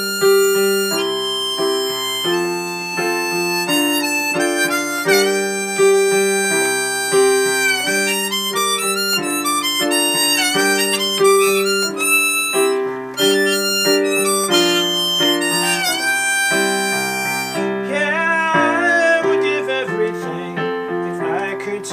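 Harmonica in a neck rack playing a solo melody, some notes dipping and sliding in pitch, over chords on a Casio digital piano. Near the end the harmonica drops out and the piano carries on alone.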